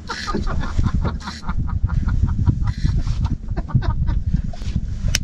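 Fishing reel clicking rapidly as it is wound in, about six clicks a second, over low rumbling handling noise.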